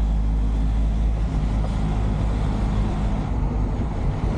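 Truck engine running while driving, heard from inside the cab, with a steady low drone and road noise. The deep engine note eases off about a second in and again after about three seconds.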